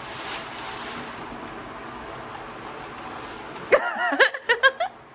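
A quick run of about six short, high-pitched vocal bursts from a person near the end, over a steady hiss.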